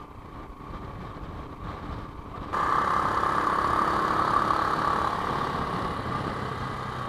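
Royal Enfield Himalayan motorcycle riding at road speed: steady engine and wind noise, which jumps suddenly louder about two and a half seconds in.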